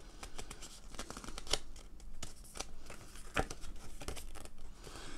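Folded paper instruction leaflet being unfolded and handled, giving a string of irregular paper rustles and crackles.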